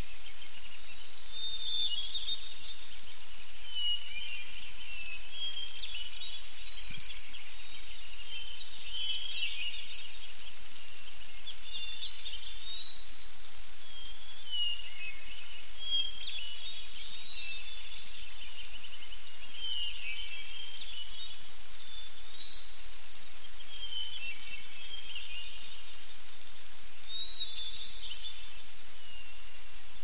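Several small songbirds chirping and twittering over a steady high hiss. About five seconds in, one bird sings a run of clear, high, evenly repeated notes for a few seconds.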